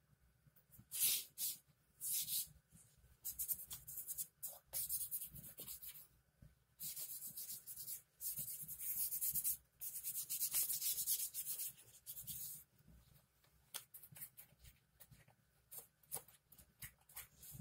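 A dry cloth rag rubbed along the rusty steel barrel of an air rifle, in a series of wiping strokes, some brief and some about two seconds long. Lighter scuffs and clicks of the rifle being handled come in the last few seconds.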